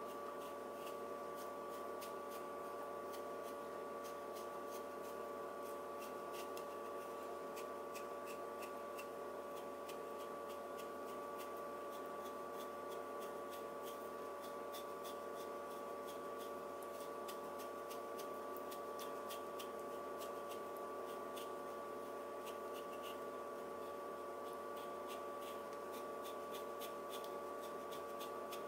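Freshly sharpened White #1 carbon-steel yanagiba slicing slowly through a hanging paper towel: a faint, fine crackling scratch as the edge parts the paper fibres, over a steady electrical hum.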